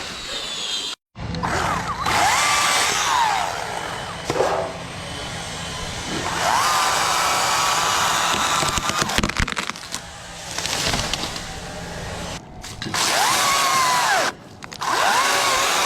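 Chainsaw running and revving as it cuts, its whine rising and falling, broken by several abrupt cuts.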